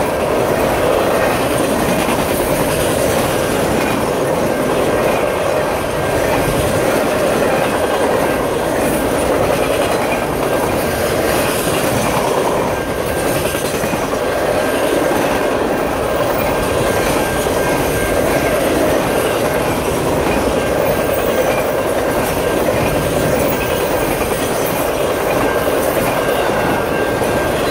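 Freight train of Triple Crown RoadRailer trailers on rail bogies passing close by: a steady loud rumble and clatter of steel wheels rolling over the rails. A thin, faint high tone runs through it from about halfway.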